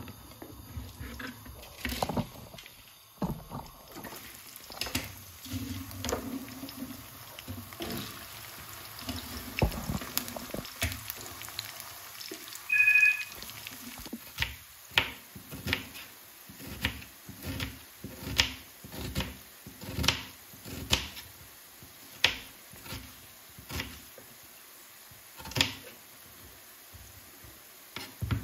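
Cut okra sizzling in hot oil in a frying pan, under a run of sharp knife strokes on a plastic cutting board as an onion is sliced. There is a short two-tone beep about halfway through.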